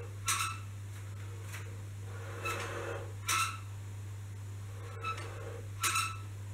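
Bullworker exerciser's steel tubes and spring giving short metallic clinks with a brief ring as it is squeezed and released. The clinks come mostly in pairs under a second apart, one pair every two to three seconds.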